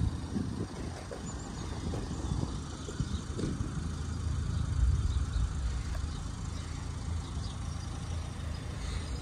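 Low, steady engine rumble from motor vehicles, swelling slightly about halfway through.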